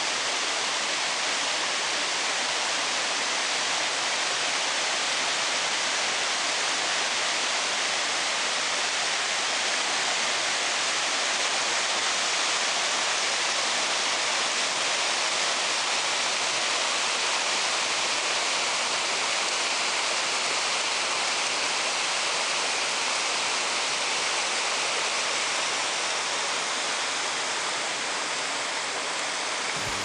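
A mountain stream rushing steadily: a constant, unbroken hiss of running water.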